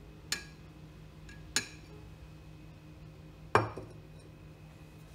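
Glassware clinking three times, a glass graduated cylinder knocking against a glass beaker as hydrochloric acid is poured from it; the last clink is the loudest and rings briefly. A low steady hum from the running magnetic stirrer sits underneath.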